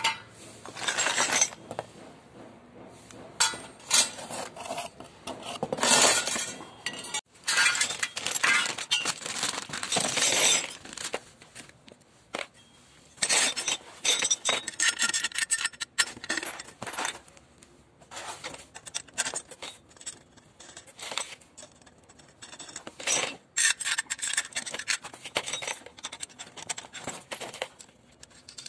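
Galvanized steel mounting bracket parts, nuts and bolts clinking and scraping as they are handled in a cardboard box, in irregular bursts, mixed with crinkling of a plastic packaging bag.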